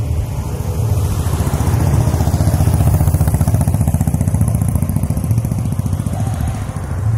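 An engine running close by, a rapid low pulsing with a hiss over it, growing louder to a peak about three seconds in and then easing off.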